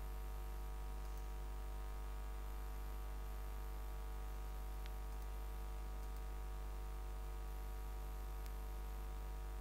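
Steady electrical hum with hiss, the background noise of the recording line, and two faint clicks about five and eight and a half seconds in.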